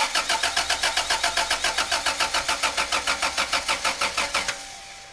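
1991 Toyota Corolla's engine being cranked over by its starter on a freshly charged battery, in rapid even pulses of about eight a second. The cranking stops abruptly about four and a half seconds in.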